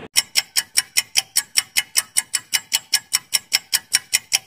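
Clock-ticking sound effect for a quiz countdown timer: quick, even ticks, about five a second.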